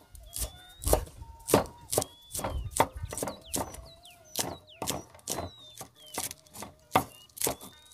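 Broad kitchen knife slicing spring onions on a wooden cutting board: quick, uneven chopping strokes, about three a second.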